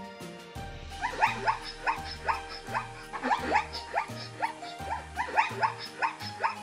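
Zebra calls: a run of short, high yelping barks, several a second, starting about a second in. Background music with a steady repeating bass beat plays under them.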